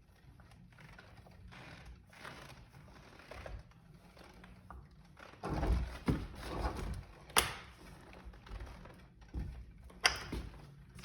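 A wrench working on the scooter's front axle bolts, with light metallic rattling and handling. A few heavier clunks come around six seconds in, and sharp metal clicks about seven and ten seconds in.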